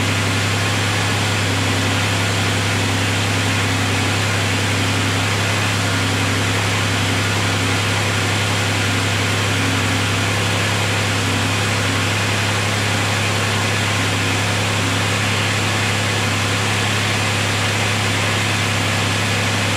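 2004 Pontiac Grand Prix engine idling steadily while it warms up after a cold start: an unchanging low hum with a hiss over it.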